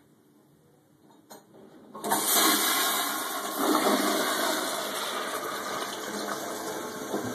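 Toilet flushing: after a short click, water rushes suddenly into the bowl about two seconds in and swirls down the drain, easing off slowly.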